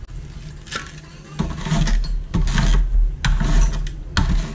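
Mandoline slicer with a dicing attachment cutting an onion: the plastic safety holder is run up and down across the stainless steel blades in repeated rattling, clattering strokes, about one a second.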